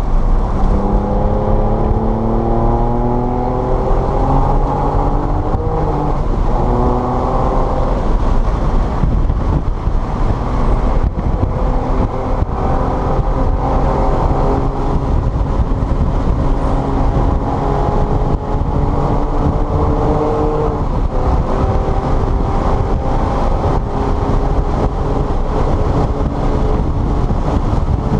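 Car engine under hard acceleration on track, its pitch climbing and dropping back several times in the first eight seconds as it is run up through the gears, then holding a steadier note with another climb later on. A steady rushing noise runs underneath.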